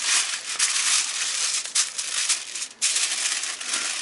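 Aluminium foil crinkling in uneven bursts as hands fold and crimp it shut around a food packet, with a brief pause about three-quarters of the way through.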